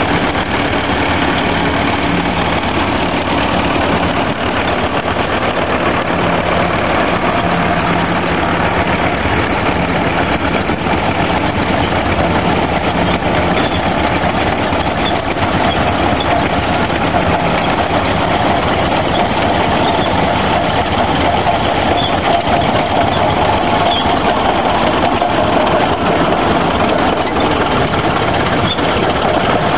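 Engines of several old tractors, a Massey Ferguson farm tractor and Caterpillar crawler tractors, running steadily at low revs as the machines move past, several engines heard together.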